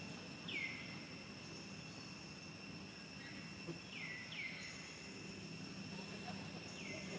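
Steady high-pitched insect drone, with four short falling chirps: one near the start, two close together in the middle and one near the end.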